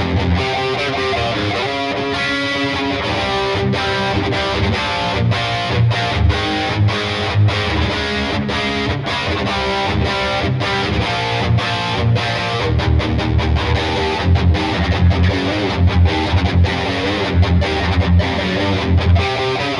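2008 Gibson SG Standard electric guitar played through a distorted, overdriven tone. It plays chord riffs that ring out, cut by many short stops between chords, which come quicker and choppier in the second half.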